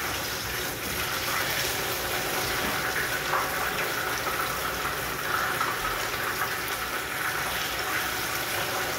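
Chicken pieces frying in a pot of hot oil: a steady, even sizzle.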